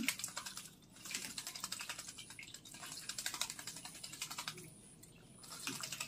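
A Javan myna bathing in a plastic water basin, its wings beating the water into rapid splashes and flicks of spray. The splashing comes in bouts, with a brief pause just under a second in and a longer lull about five seconds in before it starts again.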